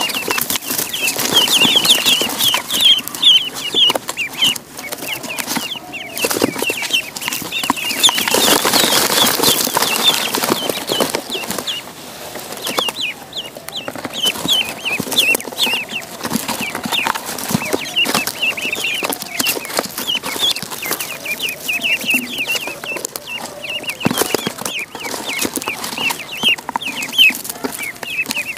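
A crowd of ducklings peeping constantly, many short high chirps overlapping. About eight to ten seconds in there is a few seconds of louder noise.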